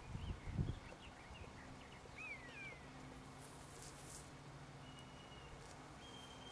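Faint outdoor ambience with a few thin bird calls: short chirps early on and a whistle that slides downward, then a steady high whistle near the end. A brief low rumble on the microphone comes in the first second.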